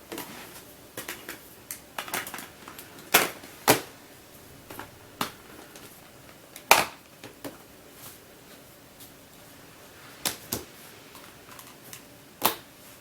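Plastic puzzle cubes being set down and shifted on a surface: irregular sharp clicks and knocks, several seconds apart.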